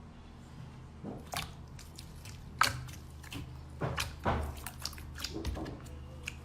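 Slime being squeezed and pressed by hand, giving irregular sharp clicks and pops, the loudest a little under three seconds in.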